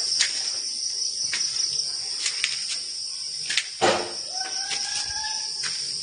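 Steady high-pitched drone of crickets or other insects. There is a sharp thump about four seconds in, followed by a long, slightly rising whistled note.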